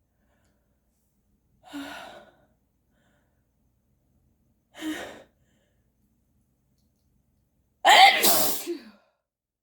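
A person sneezing with a congested nose: two short, quieter gasps about two and five seconds in, then a loud, full sneeze in two quick bursts near the end.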